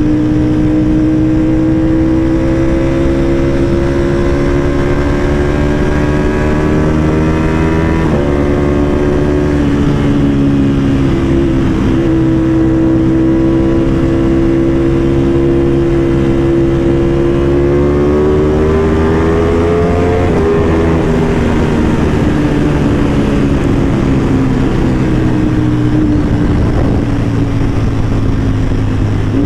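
Sport motorcycle engine heard from the rider, pulling with a slowly rising note, dropping briefly about eight seconds in as it shifts up, rising again, then falling steadily for the last third as the bike slows.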